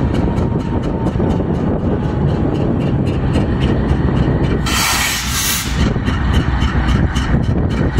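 A freight train rolling past behind a GE Dash 9-44CW diesel locomotive, with a steady low rumble and rapid, even clicking about five times a second. A loud hiss lasting about a second comes a little before the five-second mark.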